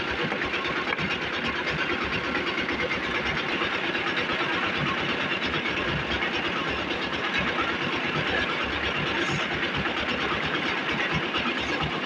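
A concrete mixer's engine running steadily with a fast, even beat.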